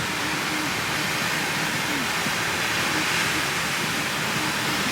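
Steady wash of beach ambience: ocean surf and wind hissing evenly, with faint distant voices.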